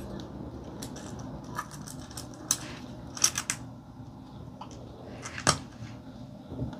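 Scattered small metallic clicks and taps as steel tweezers work loose the gold antenna-connector nut on a Radtel handheld radio's top panel, with a quick run of clicks near the middle and a sharper click near the end.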